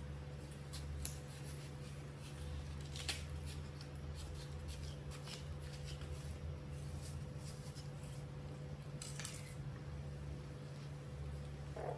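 Kitchen knife cutting through watermelon flesh and rind on a plastic tray: scattered crisp cuts and clicks, the sharpest about a second in and about three seconds in, over a steady low hum.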